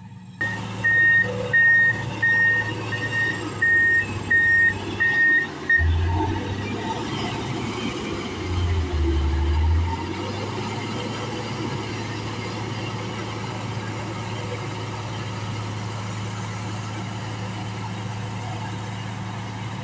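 Komatsu GD535-5 motor grader's diesel engine running, with its reversing alarm beeping about twice a second for the first six seconds or so. After the beeps stop, a deeper low drone swells twice briefly, then the engine settles into a steady run.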